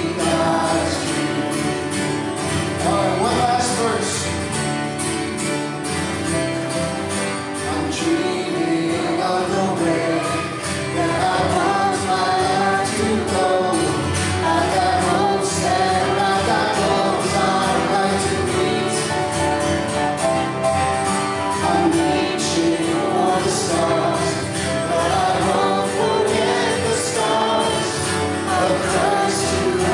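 Live worship song: a man singing into a microphone, accompanied by acoustic guitar and piano.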